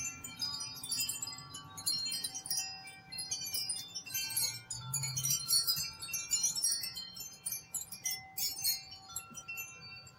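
Chimes ringing: many overlapping struck notes at different pitches, each ringing on after it is struck.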